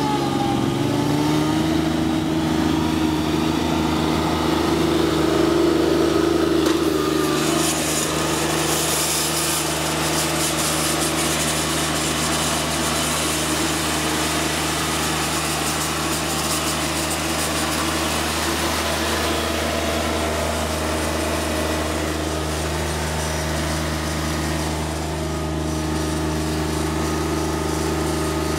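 John Deere 2653B trim mower's Yanmar 3TNV70 three-cylinder diesel engine running steadily, its pitch shifting a little in the first few seconds before settling at an even speed.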